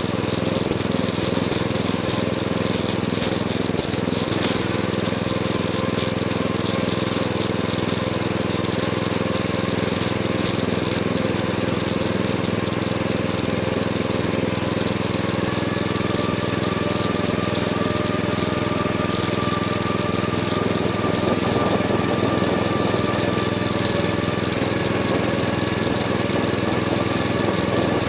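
Riding lawn mower's engine running steadily as the mower drives across the yard, picked up close from a camera bolted to its hood. A steady higher whine joins it about halfway through.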